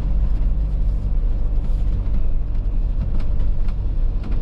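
Motorhome driving, heard from inside the cab: a steady low engine and road rumble, with a few light ticks in the second half.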